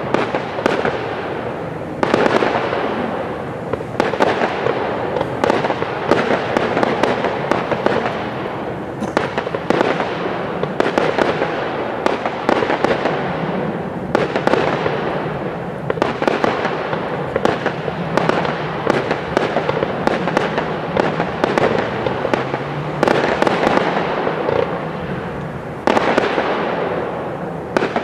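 Aerial fireworks display: shells bursting in close succession with dense crackling and popping, a fresh loud burst every few seconds, each fading out before the next.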